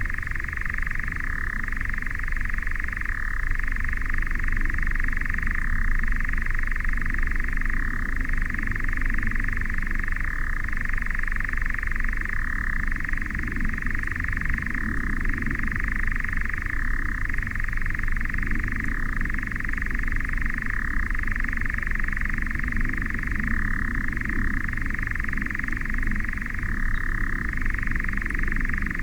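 European nightjar churring: a continuous dry, mechanical trill that falters briefly every second or two, with a low rumble beneath it.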